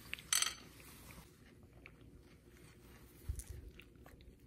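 Quiet eating sounds: a small plastic spoon scooping soft, ripe atemoya flesh, with a short sharp click just after the start and soft chewing about three seconds in.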